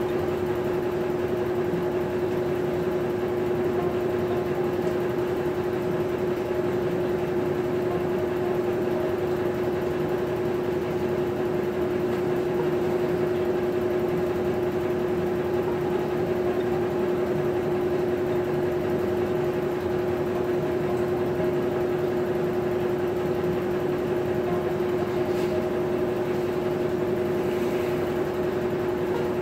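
Maytag top-load agitator washing machine running, a steady motor hum with one strong even tone that does not change.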